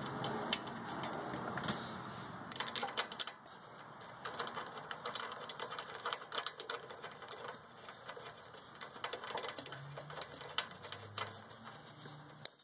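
Small irregular metallic clicks and scrapes as a new spark plug is turned by hand into the cylinder head of a Kohler Courage 24 hp V-twin engine, after a soft rustling noise in the first couple of seconds.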